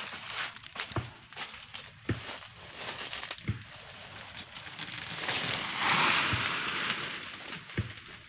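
A sapling being hacked at with a blade: irregular sharp knocks about a second apart, with a burst of rustling leaves and branches around the middle that is the loudest part.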